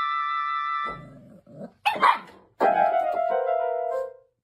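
A dog vocalizing: a high steady whine in the first second, a sharp bark about two seconds in, then a long call that falls in pitch.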